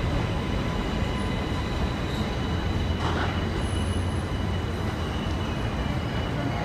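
New York City Subway train running along an elevated steel structure: a steady rumble of wheels on rails, with a thin, steady high-pitched wheel squeal over it.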